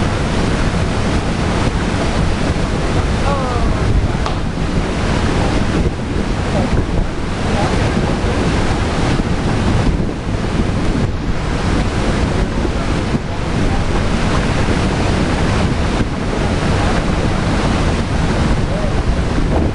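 Wind buffeting the camera microphone: a loud, steady rushing that covers the other sounds.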